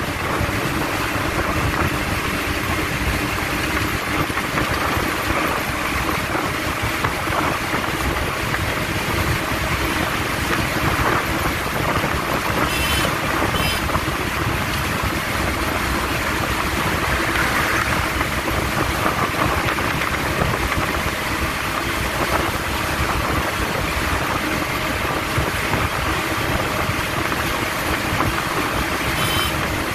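Mitsubishi L300 van driving steadily at road speed, heard from inside the cab with the window open: a constant engine drone mixed with tyre and wind noise.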